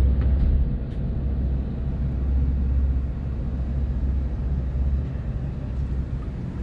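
Low, steady rumble of the riverboat's twin eight-cylinder Detroit Diesel engines running under way, easing a little about a second in.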